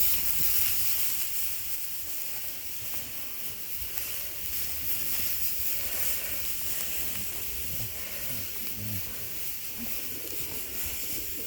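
Steady hiss from the sheep pen, with a few faint, short low sounds from the sheep about eight or nine seconds in.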